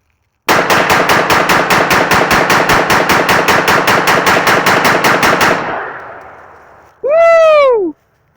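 A gun fired in a rapid, even string of about 28 shots, five or six a second, with the echo dying away over a second or so after the last shot. Near the end a person whoops, the pitch rising then falling.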